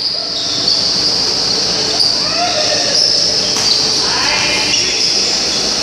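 Basketball game in an echoing gym: voices and shouts from players and spectators, with a few thuds of the ball on the court.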